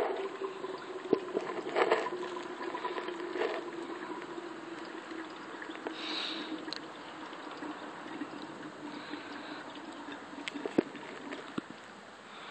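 Diesel exhaust fluid pouring steadily from an upended plastic jug through its spout into a BMW 335d's DEF tank, the tank still taking fluid. A few light clicks break through, the sharpest near the end.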